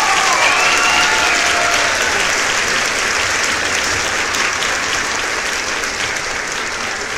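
Crowd applause: many hands clapping in a dense, steady clatter, with a few cheering voices over the first couple of seconds, slowly easing off.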